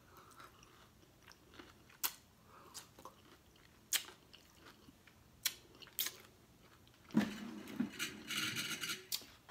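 Quiet, close-up chewing and biting on a taco, with sharp wet mouth clicks every second or two and a longer, busier stretch of chewing near the end.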